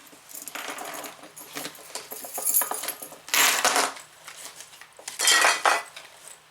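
Small hard objects clinking and rattling as they are handled and rummaged through. There are two louder bursts of rattling in the second half.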